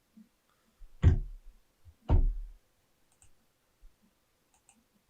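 Two heavy thumps about a second apart, each with a short low ring-out, followed by a few faint light ticks.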